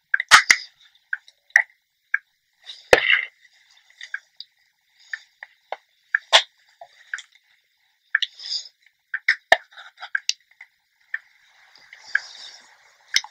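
Irregular clicks, taps and soft rustles from handling a GHD Original flat iron and hair while curling short hair, with a few sharp, loud clicks among them.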